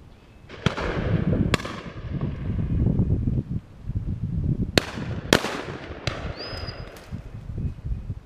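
Shotgun shots on a pheasant shoot: about six bangs at uneven intervals, some loud and some more distant, with two fired close together about five seconds in.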